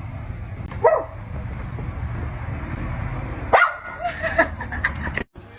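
A dog barking: one short bark about a second in, then a quick run of barks near the end, over a steady low rumble.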